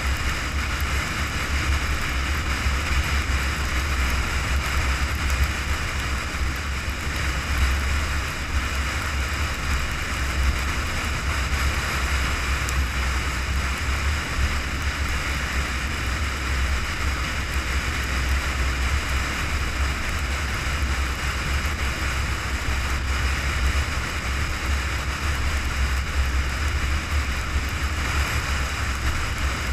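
Steady road and wind noise of a car cruising at highway speed: a constant deep rumble with a hiss above it, unchanging throughout.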